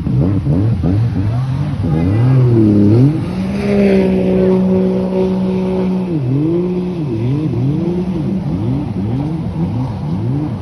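Jet ski engine revving up and down. It holds steady high revs for about three seconds, then its pitch rises and falls quickly, again and again.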